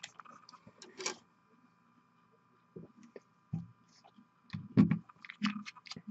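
Irregular clicks and knocks from handling paint supplies at a painting desk, loudest in a cluster about halfway through, over a faint steady whine.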